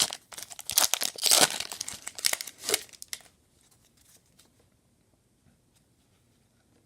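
A trading card pack wrapper being torn open and crinkled for about three seconds, then only a few faint ticks of cards being handled.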